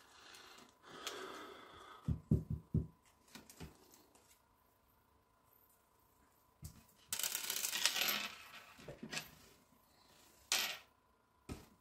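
Small metal screws and kit parts clinking and tapping as they are handled: a quick cluster of light clicks about two seconds in, a longer rattle about seven seconds in, and two sharp clicks near the end.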